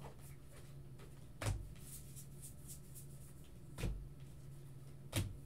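A stack of baseball trading cards handled over a tabletop: faint rustles and flicks as cards are slid off the stack, with three soft thumps, about a second and a half in, near the middle and near the end.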